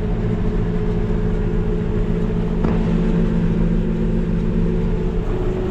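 Tractor engine running steadily while haying gets under way again with the baler.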